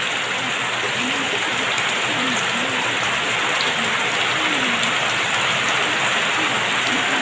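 Heavy rain falling steadily in a dense, even hiss, pattering on corrugated metal sheeting.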